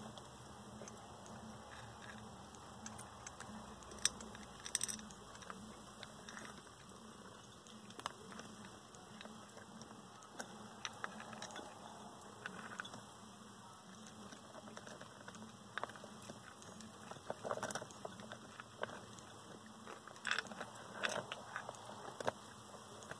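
Land hermit crabs' shells clicking and tapping against one another and against the shell food dish as they jostle over the food, with scattered small clicks that come in short clusters a few times. A faint low hum runs underneath.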